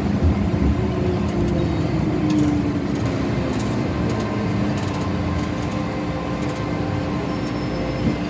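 MTR M-Train electric multiple unit slowing as it runs into a station platform, heard from inside the car: a steady rumble with a faint hum.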